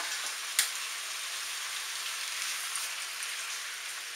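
Chopped bell peppers, onion and diced tomatoes sizzling steadily in olive oil in a hot frying pan, with one sharp click about half a second in.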